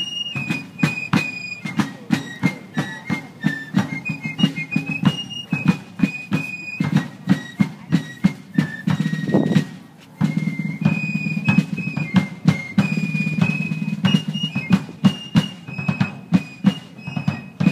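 Fife and drum corps playing a march: fifes carry a high, stepping melody over a steady beat of field drums. The music breaks off briefly a little past halfway, then starts up again.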